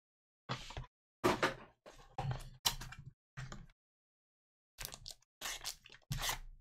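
A small cardboard trading-card box being handled and its inner tray slid out of the sleeve: a series of short scrapes and light clacks of cardboard and plastic card holders.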